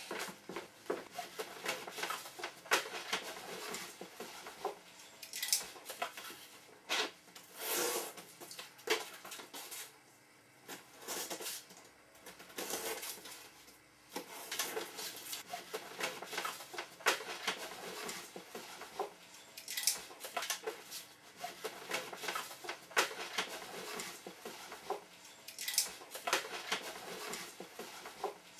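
Irregular clicks, knocks and light clatter, like small objects being handled and set down, with a quieter lull around the middle.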